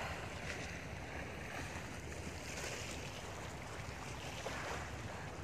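Steady seaside ambience: wind buffeting the microphone over the wash of sea water against a seawall.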